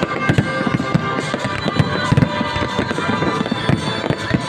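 Aerial firework shells bursting: many bangs and crackles in quick succession, over music playing through loudspeakers.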